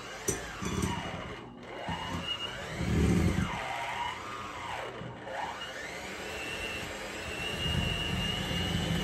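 Electric hand mixer beating a stiff, damp gingerbread dough, its motor whine sagging and recovering again and again as the beaters labour. There is heavy low knocking a few seconds in and again near the end.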